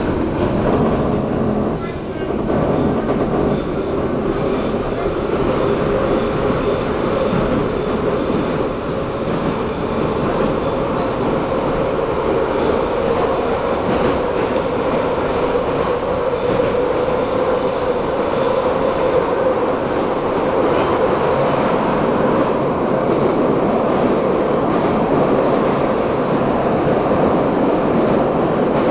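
Steady running noise inside a moving 81-717/714 metro car. A high-pitched wheel squeal comes in twice: from about five to ten seconds in, and again around seventeen to nineteen seconds.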